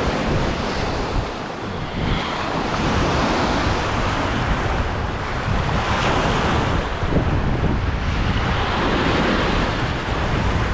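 Sea surf washing and churning around shoreline rocks, with steady wind buffeting the microphone.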